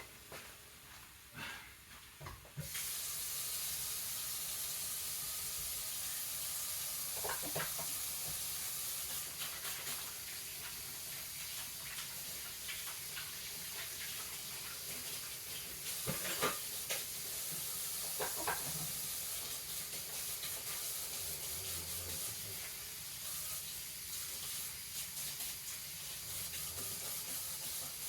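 Kitchen sink tap turned on about two and a half seconds in and left running as a steady hiss while hands are washed after handling raw meat, with a few light knocks.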